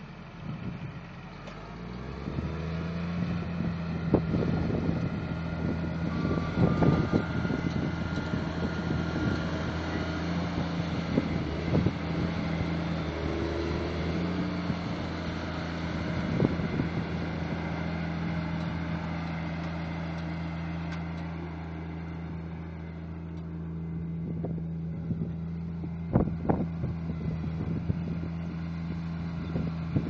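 Diesel engine of a Case IH Quadtrac tractor running under load as it pulls a large mouldboard plough, rising in pitch and getting louder about two seconds in, then running steadily. Short thumps come now and then over the engine.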